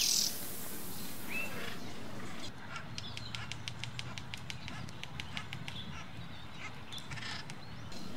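Acorn woodpecker tapping on the bark of its granary tree: a steady run of sharp taps, about four a second, for around five seconds in the middle. A short, loud bird call comes at the very start, with a few fainter calls around the tapping.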